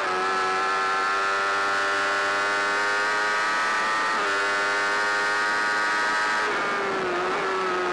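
Sportbike engine pulling at high revs at full throttle, heard onboard with wind rush over it. The note holds steady and creeps up in pitch, breaks briefly about four seconds in, and wavers and dips around seven seconds in.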